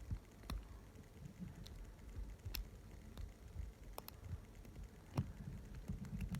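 Lock pick and tension wrench working inside a padlock: a few faint, scattered metallic clicks with light scraping and handling noise.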